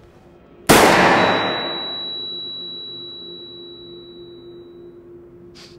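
A sudden heavy blow, a film hit effect with a long echoing tail, followed by a single high, steady ringing tone that fades out about five seconds in over a faint low hum: the ringing-ears effect of someone struck senseless.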